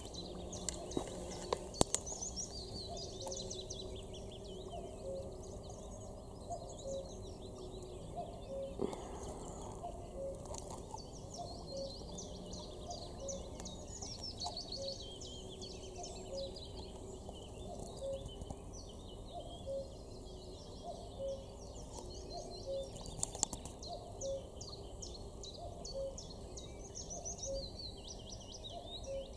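Outdoor chorus of many songbirds chirping and singing from the reeds and trees around a lake. Under it, a low short note repeats about every second and a half, and a few faint knocks come through near the start and around the middle.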